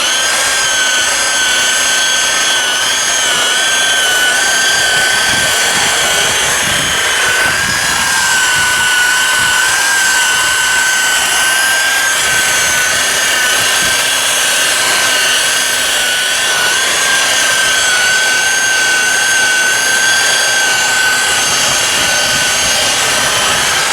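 Power buffer running steadily with a high, slightly wavering whine, its pad working a gritty polishing compound on a plastic headlight lens under light pressure.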